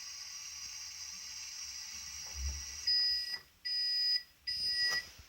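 Toy dishwasher's electronic sound effect: a steady high hiss of washing, then three loud high-pitched beeps about half a second each as the cycle ends and it stops. A soft knock comes just before the beeps.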